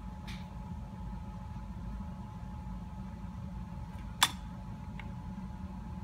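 Steady low mechanical hum, like a ventilation fan, with a faint constant whine over it. A single sharp click comes about four seconds in, and a fainter click a second later.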